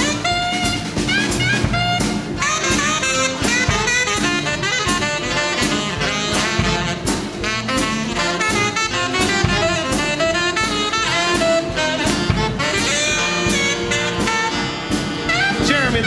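Live big band playing an up-tempo swing tune: saxophones and brass playing fast melodic lines over drum kit and upright bass, with no vocals.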